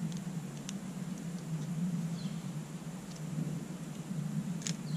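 Quiet woodland ambience: a steady low hum, two faint short chirps falling in pitch, typical of a small bird, and a few light clicks as small items are handled.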